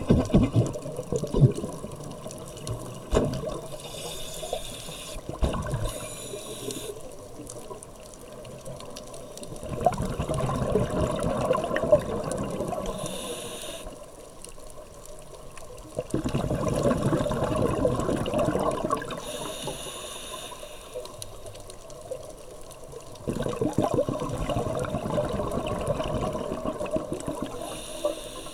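Scuba diver breathing through a regulator underwater. Each breath is a short hiss on the inhale, then several seconds of bubbling as the exhaled air leaves the regulator, repeating about every six to seven seconds. There are a few sharp knocks in the first several seconds.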